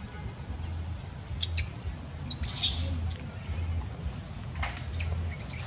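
A few short, high-pitched animal squeaks, the loudest about two and a half seconds in, over a low rumble.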